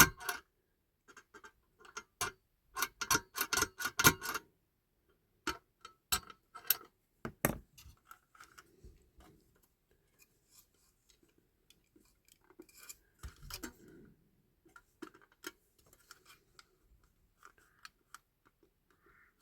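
Irregular sharp clicks and taps of hands and a small tool working at the parts of a 1/18 scale die-cast model car during strip-down, with a quick cluster a few seconds in and scattered, fainter ticks after.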